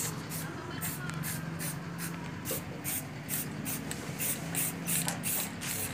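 Aerosol spray paint can hissing in short repeated bursts as paint is sprayed onto a metal motorcycle frame.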